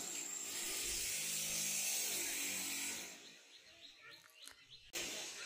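A small motor hums steadily with a high hiss, fading out about three seconds in; a single sharp knock comes near the end.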